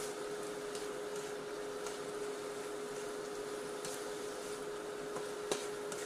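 Spatula stirring and scraping vegetables in a wok, with a few short clacks of the spatula against the pan, the sharpest about five and a half seconds in, over a steady electrical hum.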